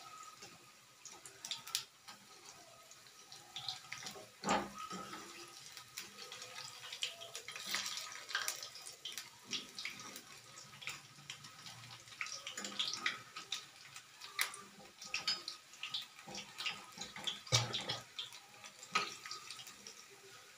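Pakoda fritters deep-frying in hot oil in a kadai, sizzling with many small pops and crackles as a metal slotted ladle stirs and turns them. The ladle knocks against the pan twice, a few seconds in and near the end.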